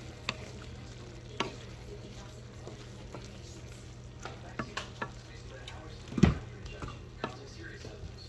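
A wooden spatula stirring a bitter melon, ground beef and egg stir-fry in a coated frying pan, with the food sizzling. Scattered clicks and knocks of the spatula in the pan sit over a steady low hum, and the loudest knock comes about six seconds in.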